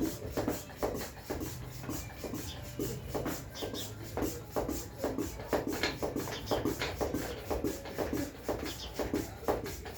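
Hand bicycle pump inflating a tyre: short, regular pump strokes about twice a second.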